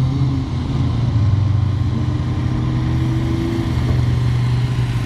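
Autocross race car's engine running hard on a dirt track, a steady low drone, with a faint tone that climbs slowly and then cuts off about four seconds in.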